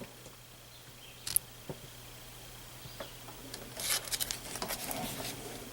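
Handling at a home circuit breaker panel: one sharp click about a second in, then a run of quick light clicks and rustling near the end, over a faint steady hum.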